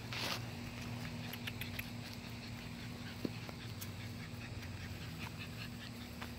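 Seven-week-old American Bully puppies moving about on dirt and grass: faint scattered scuffs and small puppy sounds, with a brief rustle at the start, over a steady low hum.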